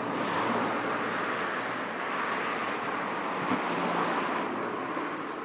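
A car passing on the road: steady tyre and engine noise that swells and then fades away near the end.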